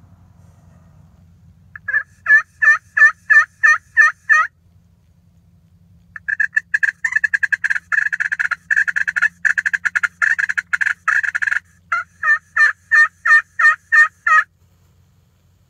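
Hen-turkey calls sounded close and loud on a hunter's turkey call: a run of about eight evenly spaced yelps, each breaking from a high note to a lower one, then about five seconds of fast excited cutting, then another run of about eight yelps.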